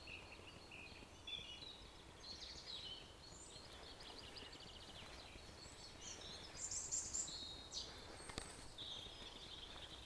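Small songbirds singing: high chirps and short rapid trills, busiest about seven seconds in.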